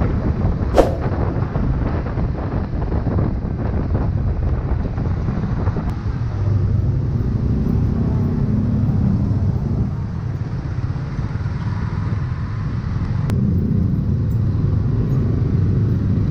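Motorcycle on the move: its engine running under a steady low rumble of wind and road noise, with one sharp click about a second in.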